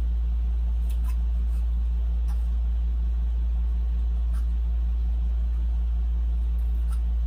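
Steady low hum of a machine or mains electrics running throughout, with a few faint light clicks scattered through it.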